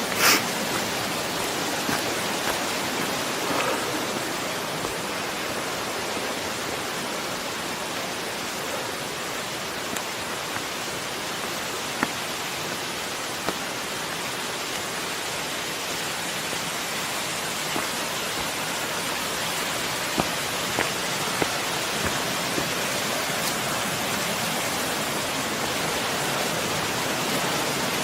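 Steady rush of flowing and falling water, with scattered sharp ticks and a louder knock just after the start.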